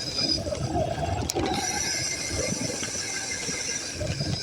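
A scooter riding over rough ground, its frame and handlebars rattling and squeaking irregularly.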